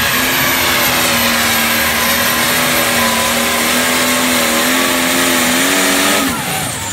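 International pro stock pulling tractor's turbocharged diesel engine running flat out under load as it pulls the sled, a steady high engine note with hiss on top. About six seconds in the throttle is cut and the engine's pitch drops away.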